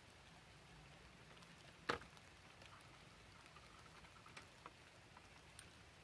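Faint patter of light rain, with one sharp click about two seconds in.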